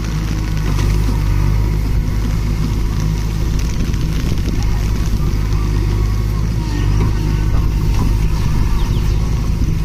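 JCB 3DX backhoe loader's diesel engine running steadily under hydraulic load as the backhoe arm works. It grows a little louder in the last few seconds.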